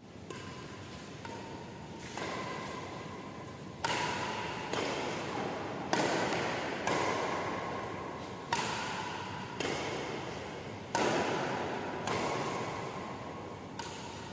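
Badminton rackets striking a shuttlecock in a rally, about a dozen hits at roughly one a second, each hit echoing and fading away in a large hall.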